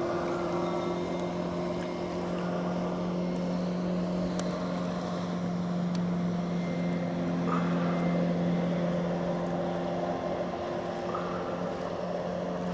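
Mercury outboard motor running at a steady pitch as the boat planes across the water, a constant engine hum.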